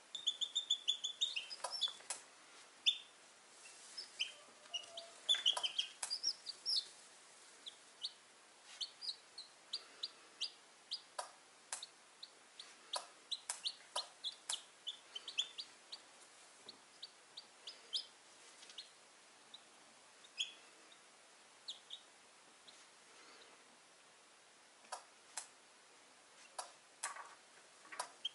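Newly hatched chicks peeping in short, high chirps, in quick runs at times and sparser at others. Scattered clicks and rustles as a hand moves among the eggs and the dry-grass nest.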